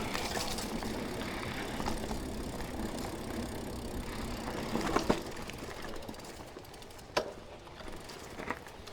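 Mountain bike rolling down a dirt trail: steady tyre and rushing noise, with sharp knocks about five seconds in and again about two seconds later, easing slightly quieter toward the end.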